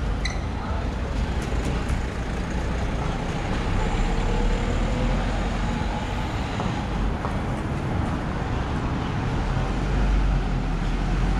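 Street traffic: cars and vans driving past with their engines running, a steady low rumble with a faint engine whine that slowly rises and falls.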